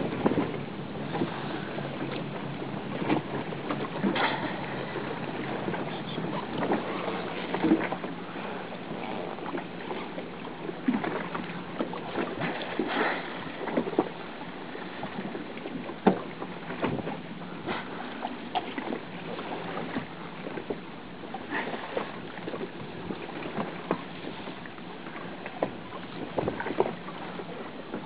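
Water slapping and splashing irregularly against a small boat's hull at sea, with wind buffeting the microphone and a steady low hum underneath.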